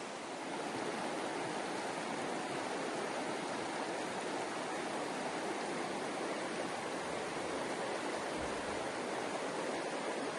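Steady rush of falling water, an even hiss-like noise that holds at one level.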